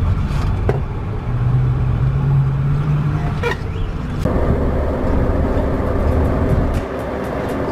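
Converted bus motorhome's diesel engine running as the bus moves off, a steady low drone, then denser engine and road noise from about four seconds in.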